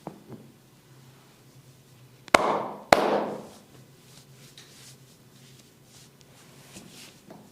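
Two loud, sharp hand slaps in a percussive massage, about half a second apart, each trailing off over about half a second; faint small taps and skin rubbing sound between them.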